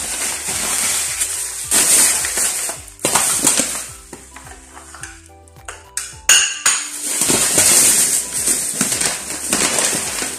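Thin plastic bags crinkling and rustling as they are handled, in uneven bursts, with a few sharp clicks of plates or food being set down around six seconds in.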